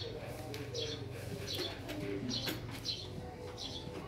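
Birds calling: a short high chirp repeated at a steady pace, about every second or less, with lower drawn-out calls underneath in the first half.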